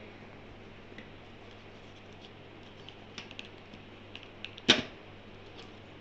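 Cardboard retail box of a phone charger being handled and opened by hand: light scattered clicks and taps of fingers and flaps on thin card, with one much louder sharp click a little under five seconds in as the box is opened.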